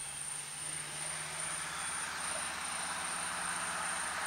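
Outdoor background noise: a rushing sound like a vehicle going by that grows slowly louder, over a steady low hum and a steady, pulsing high insect trill.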